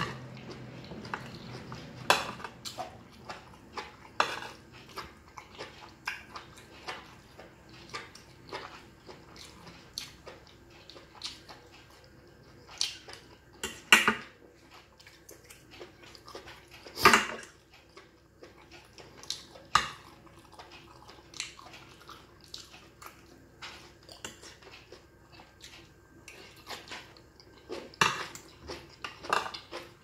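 Metal forks clinking and scraping on a ceramic plate, with chewing, in irregular short clicks. A few knocks stand out louder than the rest, the loudest a little past the middle.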